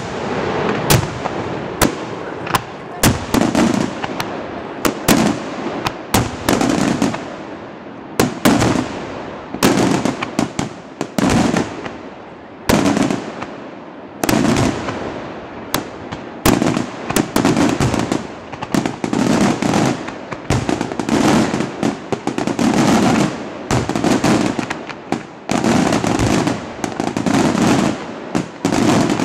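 Daytime fireworks: loud bangs in quick succession, each followed by an echo. The bangs come thicker and faster from about halfway through, into a near-continuous volley of reports.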